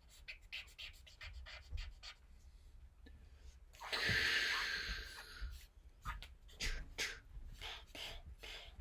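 Marker pen strokes scratching on paper in short, quick strokes. About four seconds in comes a loud breathy hiss lasting about a second and a half, a mouthed fire-breathing sound effect.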